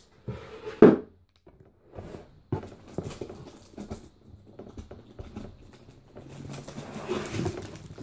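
Hands handling a cardboard box and its packing. A sharp knock comes about a second in, followed by scattered light knocks and taps. Near the end there is a longer stretch of cardboard scraping and sliding as the box is pulled up off the machine.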